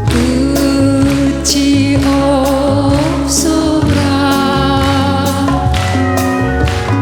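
Live band music with a singer holding long, slightly wavering notes over a steady bass line and light percussion.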